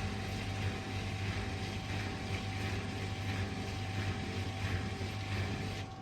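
Hoover H-Wash&Dry washer dryer running a drying programme: a steady drone of the drum motor and drying fan with a low hum and a thin steady whine, which drops away right at the end.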